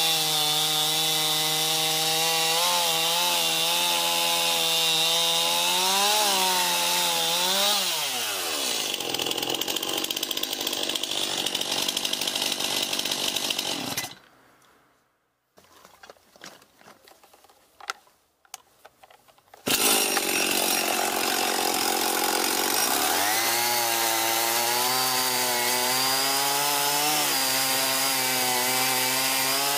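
Stihl MS 291 two-stroke chainsaw cutting through a log at full throttle, its engine pitch sagging and recovering under load, with revs falling away about eight seconds in. A few seconds of near silence with faint clicks follow. Then a Husqvarna 55 two-stroke chainsaw starts up loudly, revs up and cuts a log, its pitch wavering under load.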